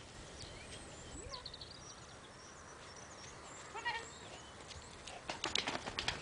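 A dog runs through a fabric agility tunnel near the end, making a quick run of knocks and rattles. A short high-pitched call comes about four seconds in, and faint bird chirps sound in the background.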